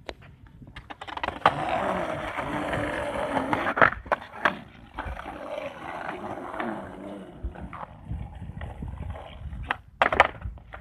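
Skateboard wheels rolling over grooved concrete with a rough, gritty rumble, broken by a few sharp clacks of the board. Near the end comes a flip trick: a loud pop and the deck clattering onto the concrete.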